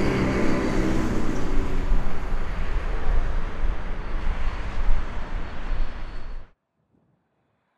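Jet airliner engine noise: a loud deep rumble with a steady high whine, slowly easing, then cutting off abruptly about six and a half seconds in.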